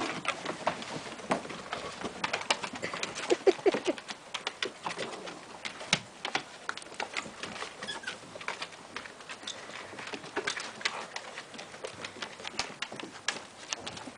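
Airedale Terrier and puppies' claws clicking and pattering irregularly on a wooden deck as they scamper and play, with a short squeak about three and a half seconds in.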